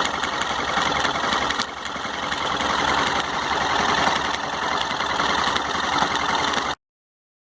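Yamaha XT660R single-cylinder four-stroke engine idling cold, with a mechanical noise from the clutch area that turned out to come from a broken bearing inside the engine. The sound cuts off suddenly near the end.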